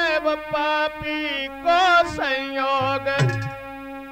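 Indian devotional folk music: a wavering melodic line that moves from note to note over a lower held note.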